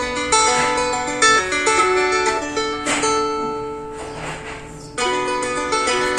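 Nokia Asha 203 ringtone playing: a polyphonic melody of quick notes in a plucked-string voice. About three seconds in, the notes give way to a hissing swell that fades out, and the melody starts again about five seconds in.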